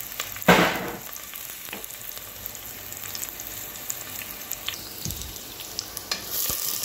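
Chopped onion frying in olive oil in a stainless steel pot: a steady sizzle with small crackles, and one brief, loud hiss about half a second in. A wooden spoon stirs the onion near the end.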